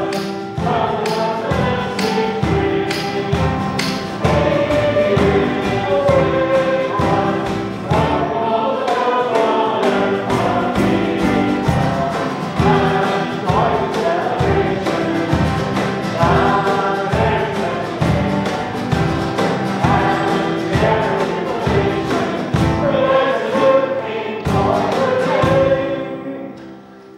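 Congregation singing a Christmas carol together, accompanied by a small band with a steady strummed beat. The song ends near the end, the last chord dying away.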